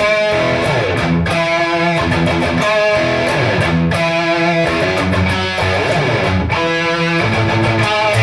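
Electric guitar playing chords.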